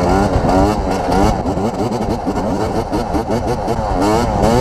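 Yamaha YZ250 two-stroke dirt bike engine revving hard, its pitch rising and falling again and again as the throttle is worked through a wheelie.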